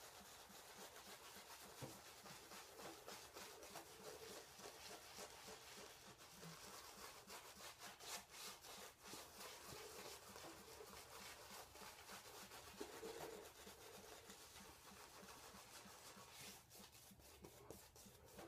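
Faint, continuous scratchy swishing of a pure badger shaving brush working sandalwood shaving-soap lather over two days of stubble in quick strokes.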